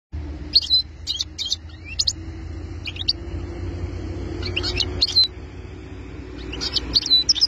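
European goldfinch singing: short bursts of quick, high twittering notes with pauses between them, growing busier near the end.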